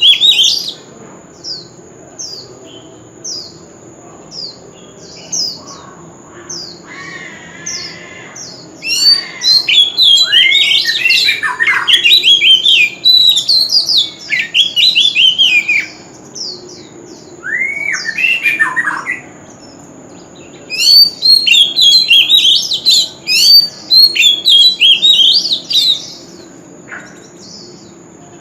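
Male oriental magpie-robin singing: several long bursts of fast, varied whistled and harsh notes, separated by pauses filled with short single notes.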